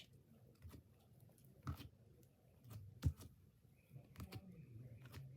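Slime being stretched out on a table: faint, scattered sticky clicks and small pops.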